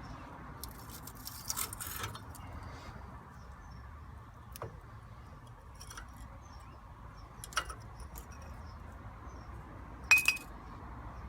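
Metal brake parts and hand tools being handled at a car's front brake caliper: a scrape and rattle early, a few single clicks, and a sharper ringing metallic clink near the end.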